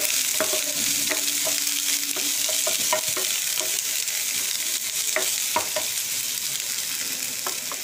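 Oil sizzling in a nonstick frying pan as spring onions, dried red chilies, green chilies and chopped ginger-garlic are stirred with a plastic spatula, which clicks and scrapes against the pan now and then. The aromatics are frying at the start of a stir-fry.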